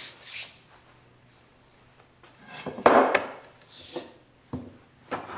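Hand plane strokes across a paulownia board: a rasping shave about three seconds in with a couple of sharp knocks of wood, a shorter one after it, and another stroke starting near the end.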